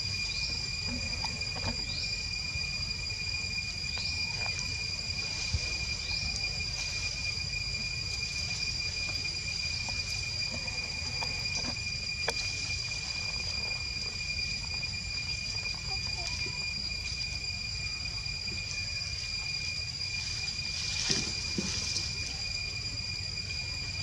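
Tropical forest ambience dominated by a steady, high-pitched insect drone, over a low rumble. Short rising chirps come every couple of seconds in the first several seconds, with a few faint clicks scattered through.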